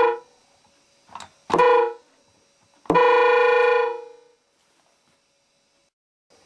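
Yawata Denki Sangyo electronic train horn sounding a steady, pitched tone in separate blasts. One blast ends just as the sound opens, a faint short one comes about a second in, a half-second blast follows, then a longer blast of about a second and a half that tails off.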